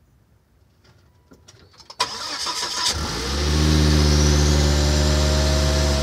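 The 4x4's engine is cranked by the starter motor about two seconds in, catches after roughly a second, swells briefly and then settles into a steady idle. A few faint clicks come before the start.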